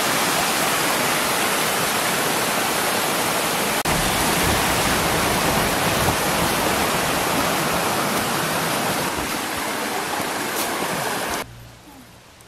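Small creek waterfall: water pouring over rocks into a pool, a loud steady rush. It cuts off suddenly near the end.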